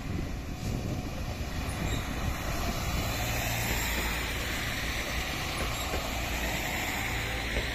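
Regional multiple-unit passenger train passing close by on the track: a steady low hum under the rolling noise of the wheels on the rails, growing strongest around the middle as the cars go past.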